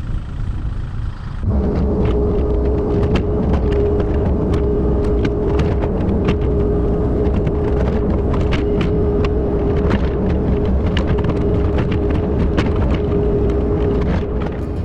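Mini excavator running and working under load: a steady engine rumble with a held whine, and many sharp cracks and knocks over it. It gets louder about a second and a half in.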